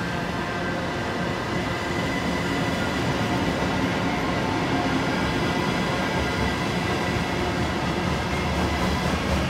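Siemens Desiro ML electric multiple unit pulling away from the platform: a running rumble with a whine of several steady tones from the electric drive, growing slightly louder.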